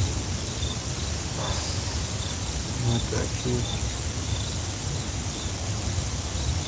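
A cricket chirping: short, evenly spaced high chirps over a steady hiss of night ambience.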